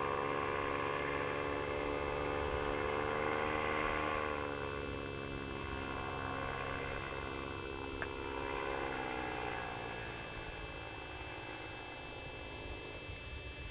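Two-stroke Simonini Mini 4 paramotor engine droning in flight. Its pitch drops about four seconds in and again about nine seconds in, and it grows fainter toward the end.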